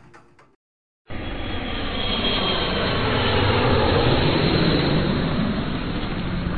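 Jet airliner flying over: a loud engine rush that starts about a second in, swells to a peak, then slowly fades.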